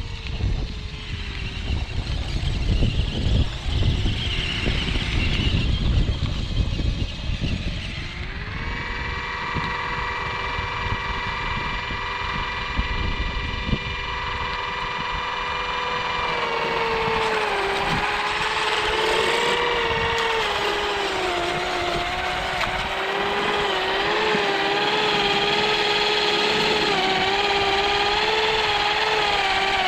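Electric motor whine from an RC snowcat with a 3D-printed snow blower attachment, over a low noisy rumble at first. The steady whine starts about eight seconds in and from about halfway wavers up and down in pitch.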